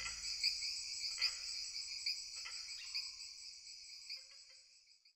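Crickets chirping in a steady, rapid pulsing, with a few faint lower calls among them. The chirping fades away to silence over about five seconds.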